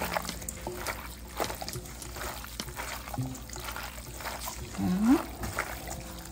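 Wet squelching and crackling of gloved hands squeezing and mixing thinly sliced beef in a lemon-juice and fish-sauce dressing in a stainless steel bowl, kneading the meat to tenderise it. A short rising tone sounds about five seconds in.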